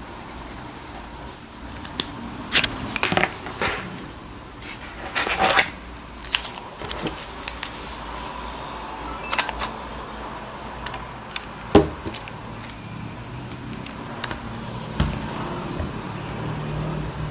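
Scattered clicks and taps from hands working a Samsung NX100 mirrorless camera and a sticky-note pad, with a few short scrapes; the sharpest click comes about twelve seconds in.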